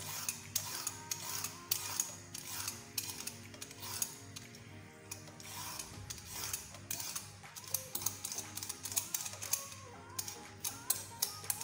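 Handheld vegetable peeler scraping down a raw carrot in quick repeated strokes, about three a second, shaving off thin strips. Soft background music plays underneath.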